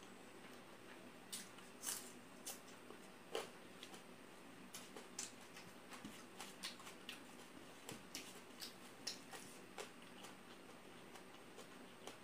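Quiet eating sounds of rice and curry eaten by hand from a steel plate: scattered short, soft clicks and smacks at irregular intervals, starting about a second in.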